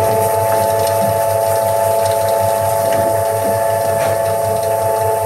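Electric motor of a cylinder proof press running steadily, turning the inking rollers to spread ink: a constant machine hum.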